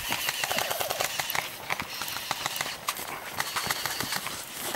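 Airsoft electric guns firing: a burst of rapid, even clacking shots in the first second, then scattered single shots and short bursts through the rest.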